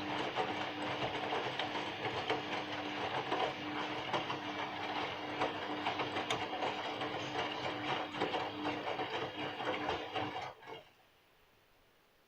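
Bosch washing machine running in its rinse programme: a steady motor hum with a held tone and rapid rattling and clicking, which stops abruptly about ten and a half seconds in.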